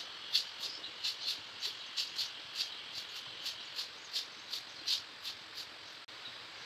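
Long-handled stiff broom sweeping a paved road, short scratchy strokes at an uneven pace of about three a second, stopping about five and a half seconds in.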